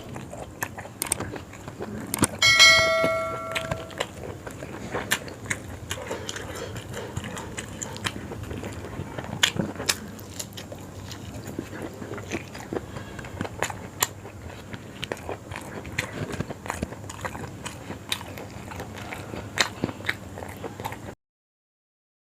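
Close-up chewing and biting while eating yong tau foo, with many small mouth and utensil clicks. About two and a half seconds in, a brief bell-like ring sounds, and the sound cuts out suddenly about a second before the end.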